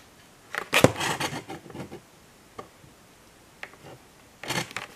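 Hands handling a clear plastic die-cast display case: rubbing and clicking about a second in, then a few single clicks and another short burst near the end.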